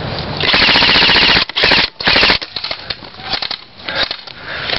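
Airsoft gun firing rapid bursts: one long burst of about a second, then two short bursts, followed by scattered softer shots.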